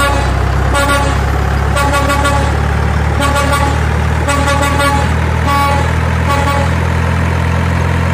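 Semi-truck's diesel engine running with a steady low drone while its air horn gives a string of short toots, about one a second.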